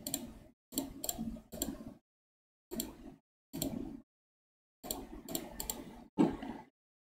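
Computer keyboard and mouse clicks in about eight short bursts. Each burst starts and cuts off abruptly into dead silence.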